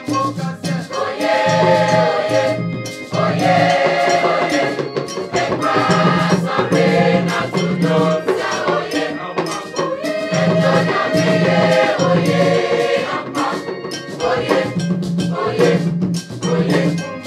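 A mixed school choir singing a lively song in several parts, over a steady percussion beat.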